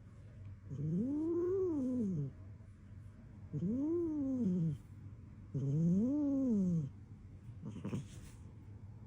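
A cat giving three long, drawn-out meows about a second apart, each rising and then falling in pitch. A short breathy noise follows near the end.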